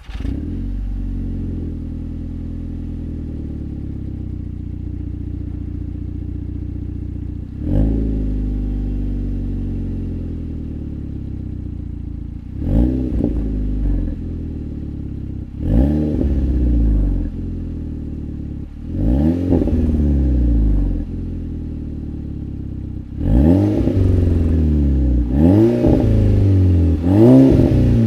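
VW Golf MK5 GTI's 2.0 turbocharged four-cylinder through a Cobra turbo-back decat exhaust: it catches and settles into a steady idle, then is blipped again and again. Each rev climbs and drops back to idle, and the blips come closer together near the end.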